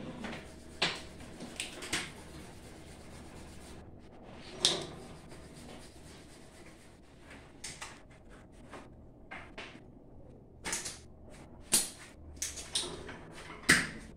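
Scattered clicks and knocks of tools and small objects being handled on workbenches, over a steady low hum of room tone. The strongest knocks come about a third of the way in and twice near the end.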